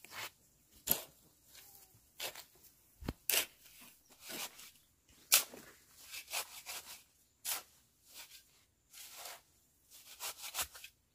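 A tool scraping through wet cement mortar in short, irregular strokes, roughly one a second, with a dull knock about three seconds in.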